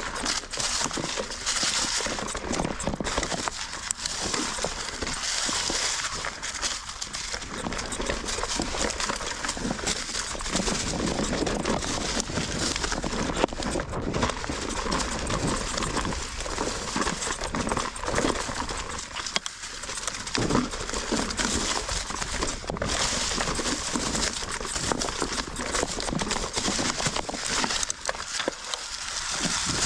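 Mountain bike rolling over rocky trail: a steady crunch of tyres on rock and gravel with a dense clatter of knocks and rattles from the bike.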